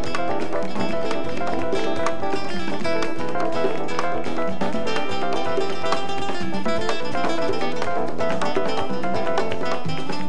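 Nylon-string classical guitar playing quick plucked melodic lines, with the band playing behind it.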